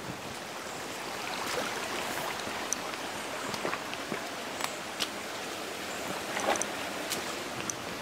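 Shallow woodland stream trickling over stones, with scattered sharp clicks and knocks of footsteps on stones and twigs.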